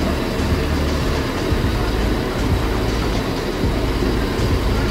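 Diesel engine of a large coach bus idling steadily, a continuous low rumble.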